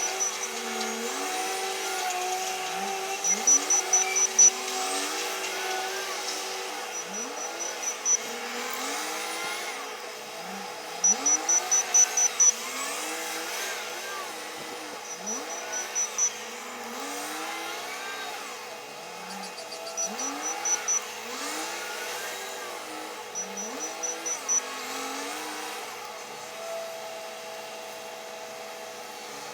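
Komatsu WA500 wheel loader's diesel engine revving up and down over and over as it works. Short trains of rapid high-pitched beeps come back every few seconds and are the loudest sounds.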